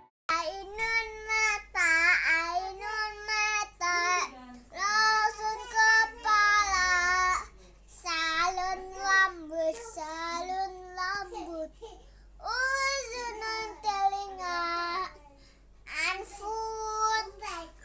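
A young child's high voice singing in short phrases with brief pauses between them.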